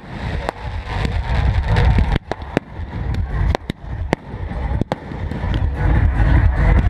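Firecrackers going off: a dozen or so sharp cracks at uneven spacing, under two a second, over a low rumble.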